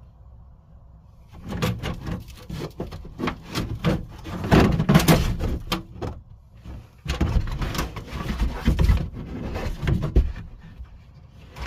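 Molded felt trunk carpet being pulled up and out of a car's trunk: rustling and scraping against the metal body in two long bouts, with a short knock near the end.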